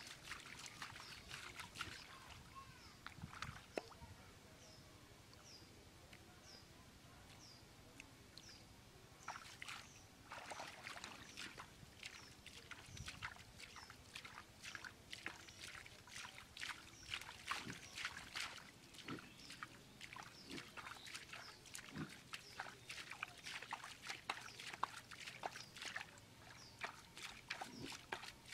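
A hand splashing and squelching through shallow muddy water, a rapid run of small wet slaps and sloshes. It thins out for a few seconds early on, when a faint high chirp repeats about every half second. Then dense splashing starts again about nine seconds in.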